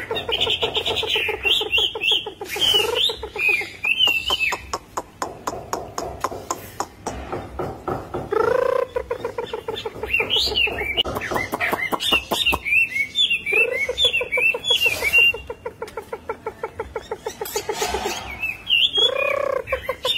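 Chinese hwamei singing a loud, varied song: quick, twisting high whistled phrases and trills, alternating with fast runs of lower repeated notes and a couple of swelling lower calls.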